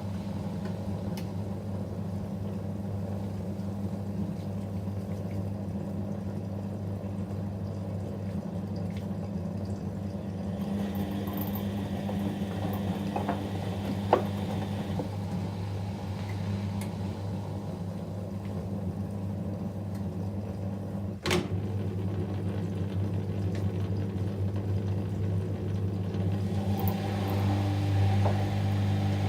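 Whirlpool washing machine running a delicate wash cycle: a steady motor hum with water moving inside, and two sharp clicks around the middle.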